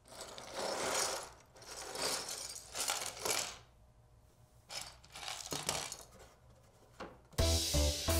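Plastic Lego pieces rattling inside a cardboard box and clattering out onto a cloth-covered table in several shakes. Music with a beat starts near the end.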